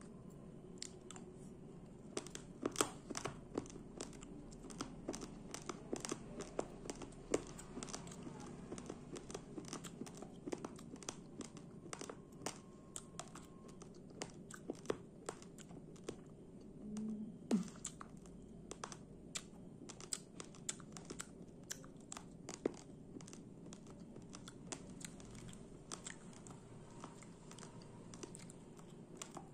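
Raw rice grains being chewed, cracking between the teeth in a rapid, irregular run of sharp crunches.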